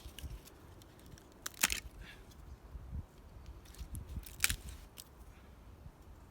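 Dry plant material, likely tinder from a hand-drill fire-making kit, being handled, with crisp crackles and snaps and two sharper, louder crunches about a second and a half in and again about four and a half seconds in, over a low rumble.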